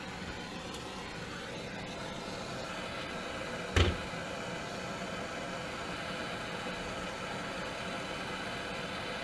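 A steady mechanical hum, with one sharp knock a little before the middle.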